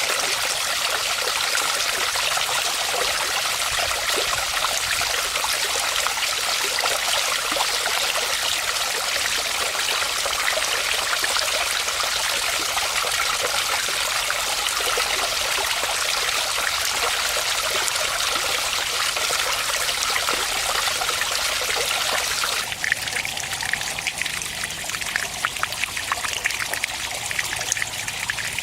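Water from a garden fish-pond waterfall falling and splashing steadily. About 23 seconds in the sound changes abruptly to a thinner, more spattery trickle.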